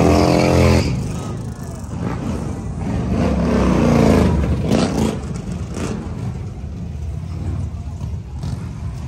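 Large touring motorcycles riding past one after another, their engines running loud. One is loudest at the very start, and another swells and fades as it passes close about three to four seconds in.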